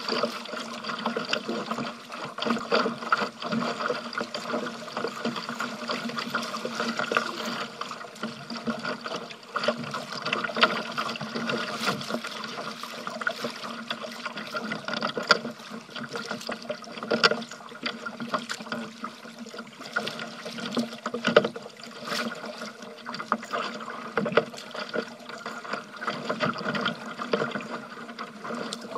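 Water splashing and lapping against a kayak's bow as it is paddled through choppy water, with frequent irregular louder splashes.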